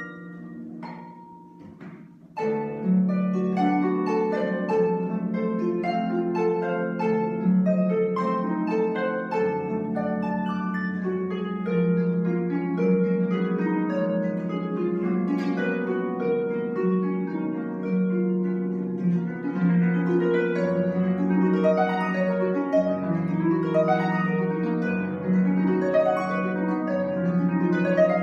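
Concert pedal harp played solo. The first two seconds or so are soft, then the playing comes in fuller as a continuous run of plucked notes over a repeated low note.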